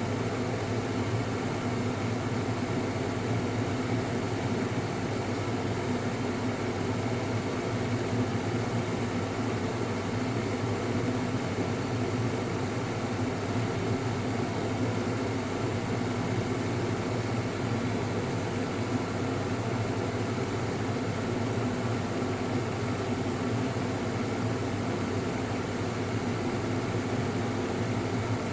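A steady machine hum made of several constant tones over a low noise, unchanging throughout.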